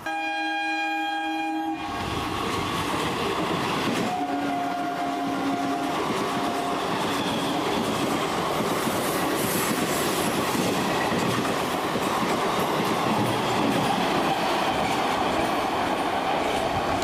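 Indian Railways EMU electric local train sounding its horn, a held blast that stops after about two seconds, then running through the station at speed with a steady rumble and wheel clatter. A second, shorter horn blast sounds about four seconds in.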